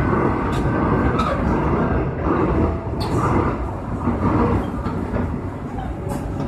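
Seoul Metro Line 8 subway train running through a tunnel: a steady heavy rumble of wheels on track with a faint motor whine, and a few sharp clicks.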